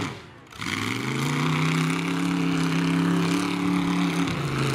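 Demolition derby stock truck's engine revs falling away to a brief lull at the start, then climbing back up and holding high and steady before easing off near the end.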